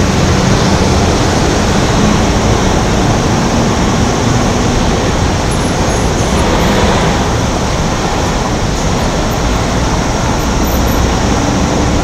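City street traffic: cars and buses passing and idling at a busy intersection, a loud, steady wash of road noise with a faint low engine hum at times.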